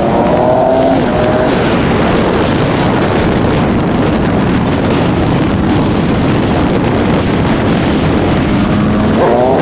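Husqvarna 701's single-cylinder engine under way, its pitch rising as it accelerates in the first second and again just before the end. Heavy wind noise on the microphone.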